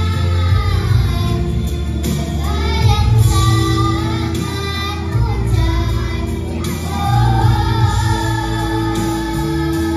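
A group of children singing together into microphones over instrumental accompaniment, with held notes and a steady low bass line.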